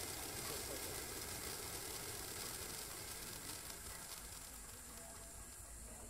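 Pyrotechnic waterfall firework hissing steadily as it pours a curtain of sparks, growing fainter over the last two seconds as it burns out.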